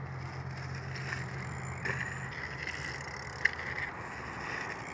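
Bicycle tyres rolling over a packed-dirt track, with a low rumble in the first two seconds and a single sharp click about three and a half seconds in.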